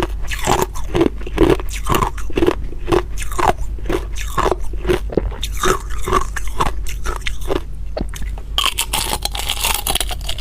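Hard ice being bitten and chewed: rapid crunches, about two a second, turning into a denser crackling crunch near the end.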